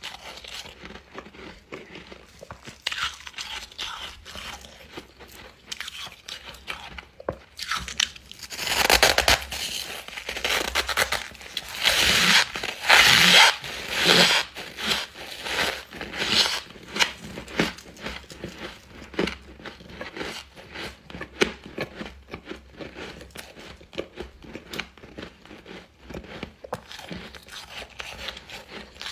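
Close-up crunching and chewing of refrozen freezer frost, crisp bites breaking up the powdery ice, densest and loudest in the middle stretch.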